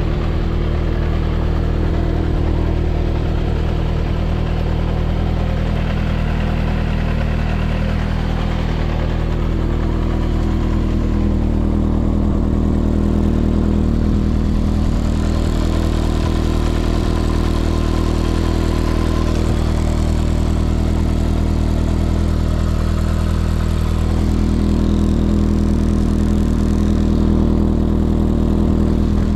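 Yamaha XJR400's air-cooled inline-four idling steadily through an SP Tadao Super Combat aftermarket full exhaust, running without abnormal noises.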